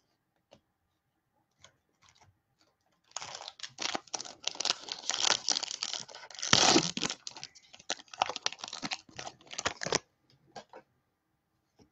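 A Topps Chrome trading-card pack wrapper being torn open and crinkled: about seven seconds of irregular crackling rustle, starting about three seconds in and loudest a little past the middle.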